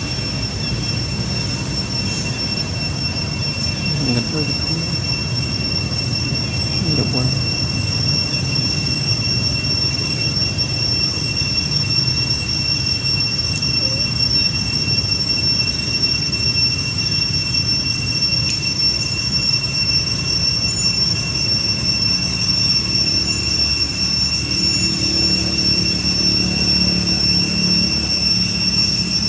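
Insects droning steadily at a high, unchanging pitch, over low background noise.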